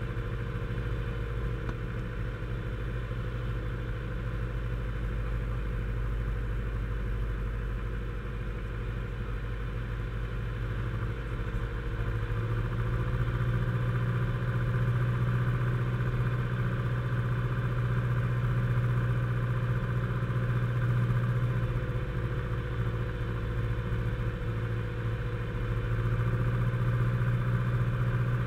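Single-engine light aircraft, a Grumman AA-5A Cheetah with its four-cylinder Lycoming O-320, droning steadily with its propeller, heard from the cockpit on approach to land. About twelve seconds in, the engine note shifts and gets a little louder, staying that way to the end.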